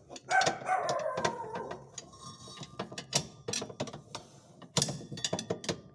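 Irregular metal clicks and clanks of a socket wrench worked against a washing machine's motor mount, as the motor is levered up to tension its slack drive belt. A short voice-like sound comes about half a second in.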